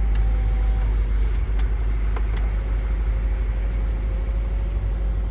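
Hyundai Mighty truck's turbo engine idling steadily with a low rumble, while the electric power-window motor in the driver's door runs with a thin whine as the glass moves. The whine stops about a second in and starts again from about three seconds, with a couple of clicks in between.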